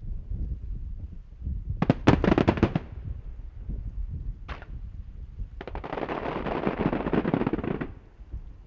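Fireworks: a quick cluster of sharp bangs about two seconds in and a single pop near the middle. Then a dense crackling lasts about two seconds and stops.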